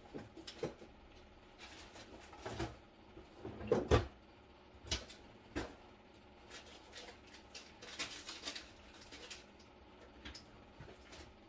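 Scattered knocks and clatter of kitchen items being handled and set down, with the loudest cluster about four seconds in and a run of lighter taps around eight to nine seconds.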